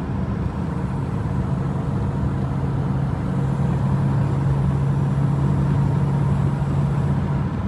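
Inside the cab of a 1994 Toyota pickup fitted with a 3.4-litre V6, cruising at highway speed: a steady engine drone mixed with road and tyre noise. A steady low hum grows stronger about three seconds in.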